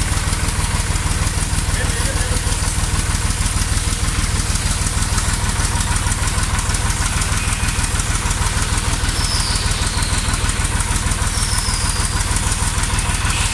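Massey Ferguson tractor engine idling steadily.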